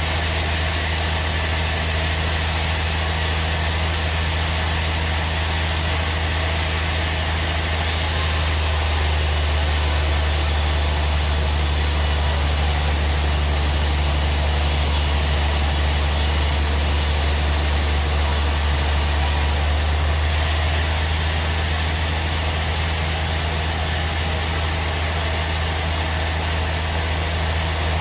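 Log bandsaw sawmill machine running steadily with a low hum. A brighter hiss joins from about eight seconds in and drops away again about twenty seconds in.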